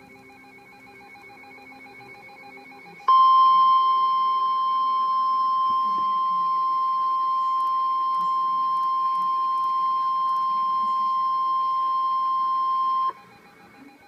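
NOAA Weather Radio 1050 Hz warning alarm tone. A single steady, loud tone starts abruptly about three seconds in, holds for about ten seconds and cuts off suddenly; it is the alert signal that comes before a warning broadcast.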